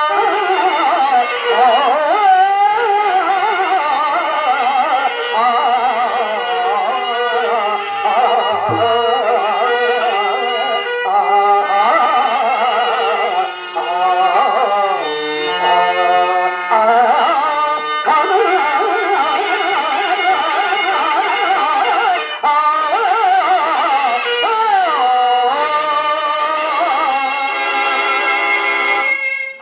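A male stage actor sings a Telugu padyam (verse) through the stage microphone. His voice slides and ornaments each long line, over instrumental accompaniment.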